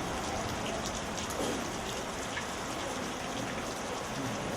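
Steady rain falling and pattering on surfaces, with scattered drops ticking.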